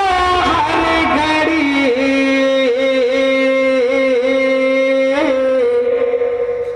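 A voice singing a devotional melismatic line. It glides down early, then holds one note for several seconds with small wavers and breaks off near the end.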